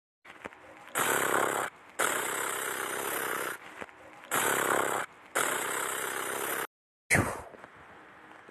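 Gun sound effects: four long hissing bursts, then sharp shots, each followed by a quickly falling whine, about a second and a half apart near the end.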